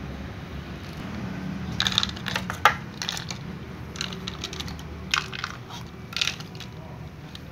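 Cats eating dry kibble from small plastic bowls: irregular sharp crunches and clicks, bunched in the middle seconds, over a steady low hum.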